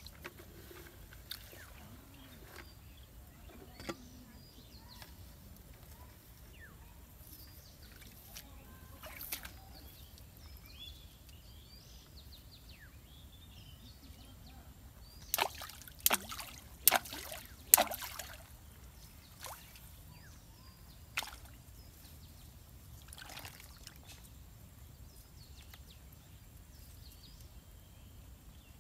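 Quiet outdoor pond-side background with faint chirps, broken about halfway through by several sharp water splashes in quick succession as a bamboo fishing line is worked in a shallow pond.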